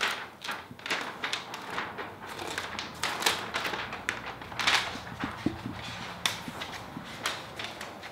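A large sheet of paint protection film rustling and crackling as it is held up and handled, in irregular short crinkles.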